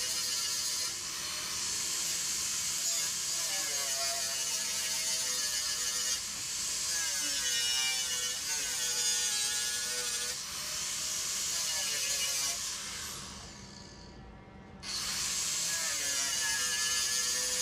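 Angle grinder grinding steel, its pitch sagging and recovering as the disc is pressed into the work. About thirteen seconds in it eases off and goes quieter for a couple of seconds, then bites in again.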